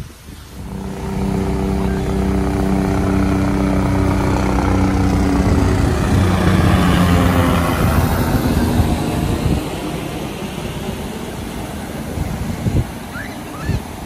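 A passing engine: a steady engine hum that swells over several seconds, peaks around the middle and drops in pitch as it goes by, then fades, over the wash of surf.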